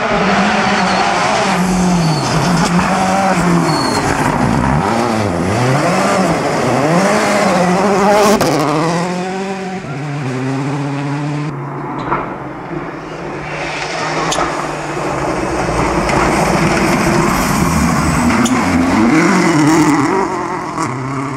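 Rally cars at speed on a gravel stage, engines revving hard with the pitch repeatedly climbing and dropping through gear changes and lifts. The sound changes abruptly about twelve seconds in as another car takes over.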